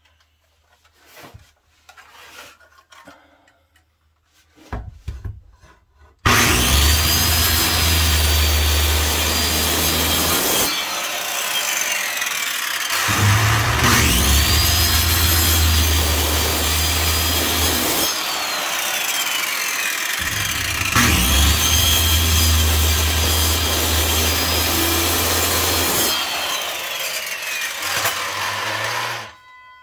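Corded circular saw cutting a notch into a wooden cross brace, in three passes after about six seconds of quiet. Each pass opens with the blade spinning up in a rising whine, cuts through the wood, and ends as the motor winds down.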